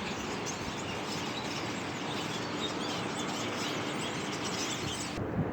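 A huge flock of small birds chattering all at once, a dense, continuous mass of overlapping chirps. The chatter drops away abruptly near the end.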